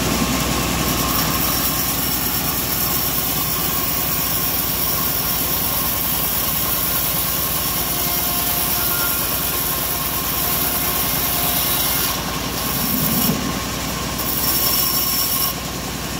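Homemade bandsaw running steadily, its blade cutting lengthwise through a mahogany slab. The sound dips briefly a few times near the end.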